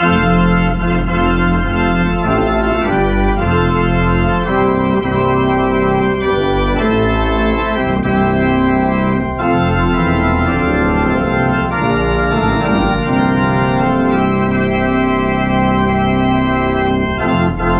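Home pipe organ playing a song in full chords, the swell division with ranks from 16-foot to a three-rank mixture over a 16-foot pedal bass, with short breaks between phrases about nine seconds in and near the end. The wind is a bit "sloshy", unsteady because the concussion bellows under the swell wind chest need stronger springs.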